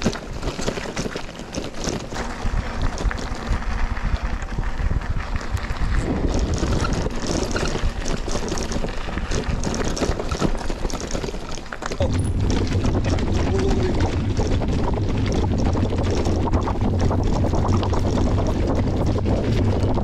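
Mountain bike riding downhill on a rough dirt trail: wind rushes over the microphone and the bike rattles and knocks over bumps. About twelve seconds in, the wind noise gets louder and turns into a steady low rumble.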